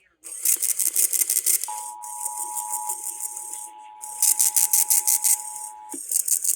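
Emergency Alert System test signals: harsh buzzing digital data bursts (the SAME header) about a second long, heard four times, with the steady two-tone attention signal sounding under them from about two seconds in until near the end.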